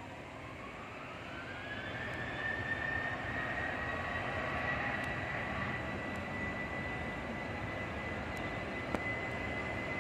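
Jet airliner's engines spooling up for the takeoff roll: a whine rises over the first two seconds and then holds steady above a broad rumble that grows louder.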